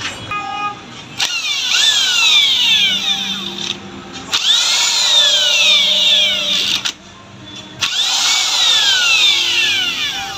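Handheld electric power wrench spinning a socket on a motorcycle's clutch hub nut in three bursts of a couple of seconds each. The motor whine falls in pitch through each burst.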